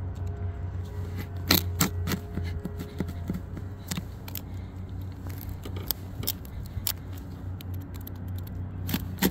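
Utility knife blade scoring an asphalt roof shingle: several short scraping strokes, drawn with light pressure so only the top shingle is cut, over a steady low hum.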